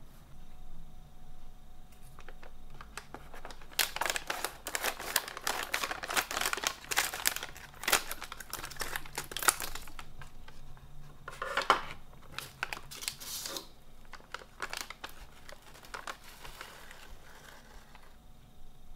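Foil-lined plastic snack bag of crispy seaweed crinkling and crackling in bursts as it is handled and cut open with scissors.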